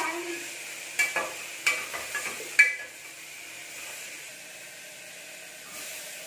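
Onions frying in oil in an open pressure cooker, sizzling steadily, while a spatula scrapes and knocks against the pot about six times in the first three seconds, each knock ringing briefly.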